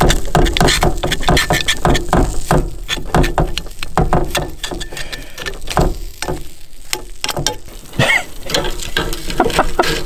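A metal spoon scraping and knocking against a jaffle iron's plates, prying out a burnt toasted sandwich that has stuck fast. Quick, irregular clicks and scrapes that thin out briefly midway.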